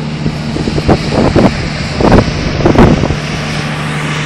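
Wind buffeting the microphone in several irregular gusts from about half a second to three seconds in, over a steady low engine hum.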